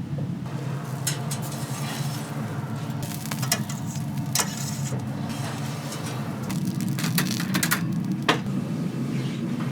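Commercial kitchen at work: a steady low hum with food sizzling, and sharp clinks and knocks of utensils or pans about five times.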